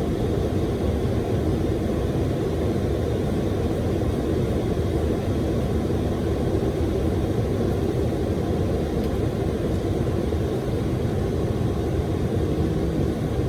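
Steady rushing noise of airflow and engines inside a Boeing 737 cockpit in flight.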